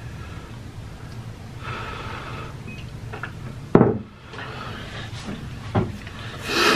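Close-miked eating sounds of spicy instant noodles: slurping, chewing and breathing through the nose. There are short sharp mouth noises, the loudest about four seconds in and two more near the end.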